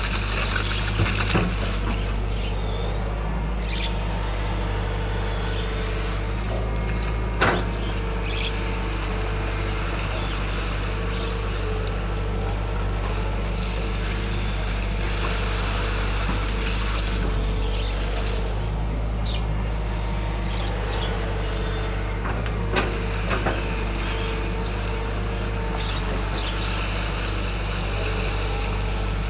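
Excavator diesel engine running steadily under working load, with a higher tone that rises and falls away at intervals and a few short knocks, the loudest about seven seconds in.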